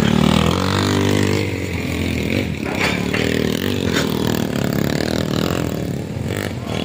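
Motorcycle engine revving as it is ridden through mud on a steep dirt road, its pitch rising and falling with the throttle.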